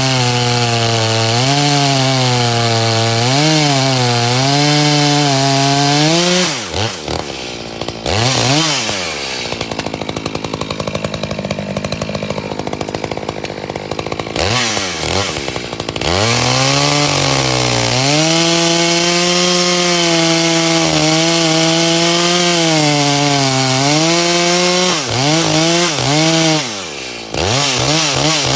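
Echo CS-600P two-stroke chainsaw run at full throttle while cutting wood, its pitch sagging and recovering under the load of the cut. The engine drops back about six seconds in and again near the end, then revs up again each time.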